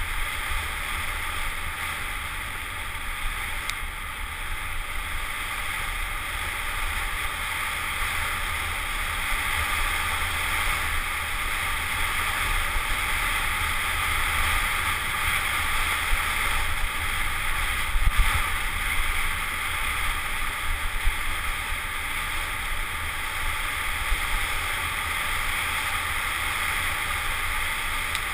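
Steady rush of wind on a helmet camera's microphone mixed with the rumble of tyres rolling fast over a gravel trail, with a few sharp bumps from the trail, the clearest about two-thirds of the way in.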